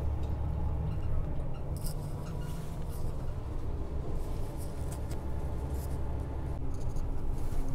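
Coach bus moving on the road, heard from inside the passenger cabin: a steady low rumble of engine and tyres.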